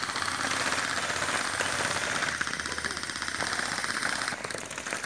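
Electric gel ball blasters firing on full auto: a continuous, rapid, even rattle that eases off near the end.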